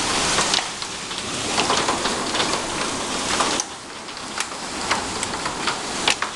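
Heavy rain and hail pouring down: a dense, steady hiss of rain with many sharp clicks of hailstones striking the ground and patio furniture. The hiss drops in level about three and a half seconds in, leaving the hail clicks more distinct.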